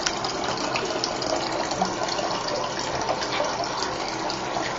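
Water running steadily from a tap into a sink, splashing into the water as the basin fills.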